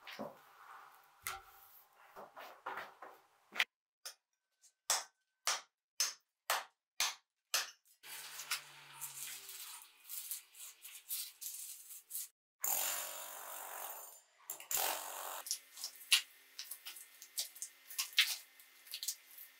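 Concrete floor being broken up: a run of sharp knocks a few seconds in, then a power tool running in two short bursts. Near the end, broken concrete chunks clatter as they are picked out of the hole.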